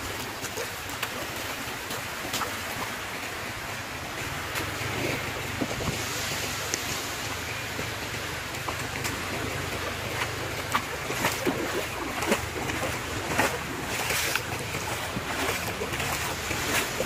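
Shoreline ambience: wind buffeting the microphone over shallow seawater lapping at the sand. Scattered short clicks and taps run throughout and grow more frequent in the second half.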